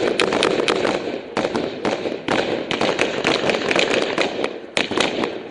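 Small-arms gunfire in a firefight: rapid, uneven shots, several a second, with short lulls between strings of fire.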